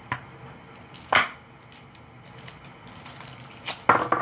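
Paper wrapping on a toy surprise being torn and crumpled by hand: a few short, sharp crackles, the loudest about a second in and a quick cluster near the end.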